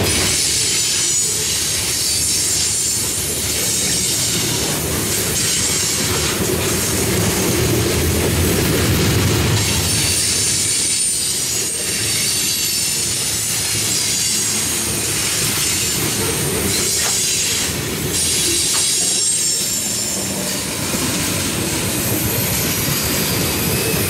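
Covered hopper cars of a freight train rolling past: a steady rumble of steel wheels on rail, with a high wheel squeal that comes and goes, strongest near the start and about halfway through.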